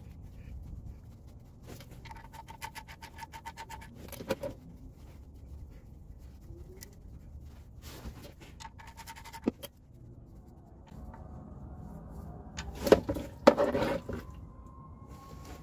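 Socket ratchet clicking in quick runs as the 17mm drain plug is backed out of the oil pan: one run of about two seconds early on, a shorter one in the middle. A few sharp knocks come near the end.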